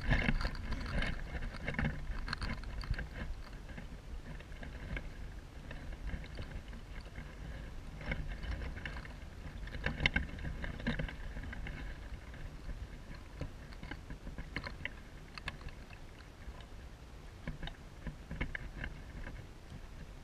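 Irregular rustling and crackling of dry nest grass and twigs as a Gila monster shifts and pushes its head among quail eggs, over a low wind rumble on the microphone.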